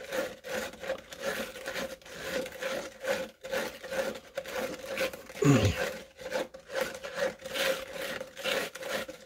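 A stirring stick scraping round inside a plastic cup of wet Cement All mixed with black pigment, in quick repeated strokes, as the mix is worked smooth. A brief falling sound cuts in about halfway through.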